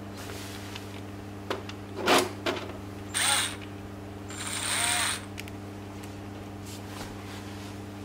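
A few handling clicks and knocks, then a cordless drill run in two short bursts, the second a little longer, its motor pitch bending as it spins up and slows.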